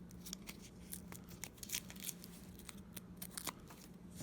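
Faint, irregular clicks and rustles of hands peeling and pressing small adhesive foam pads onto the cart's metal frame.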